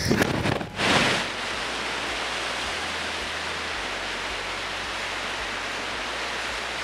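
Quarry blast: two sharp bangs about a second apart, then a steady rushing noise.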